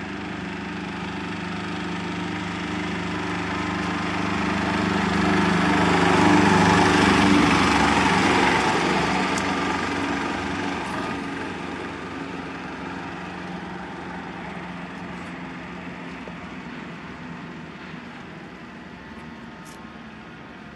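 A small vehicle engine runs at a steady speed, growing louder to a peak about seven seconds in and then slowly fading, as a vehicle comes close and moves away.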